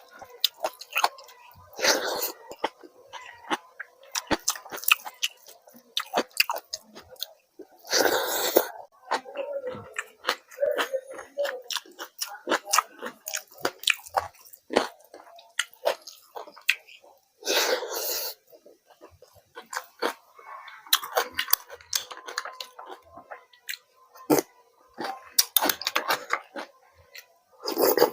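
Close-miked chewing of food, full of wet mouth clicks and smacks, with a few louder, longer bites or crunches.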